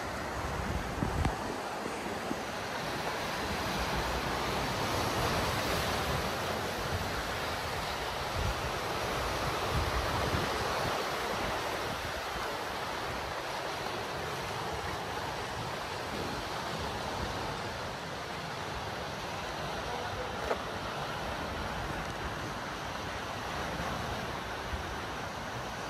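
Sea waves breaking and washing, swelling for a few seconds and then easing, with wind buffeting the microphone.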